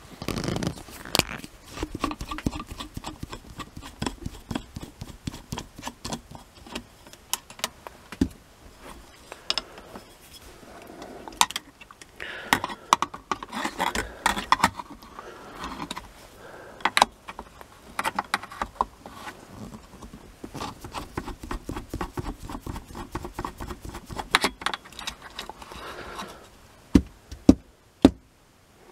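A 4BA box spanner being turned on the nut holding an aluminium electrolytic capacitor canister to a radio's metal chassis: irregular small metallic clicks, taps and scrapes, with two sharper clicks near the end.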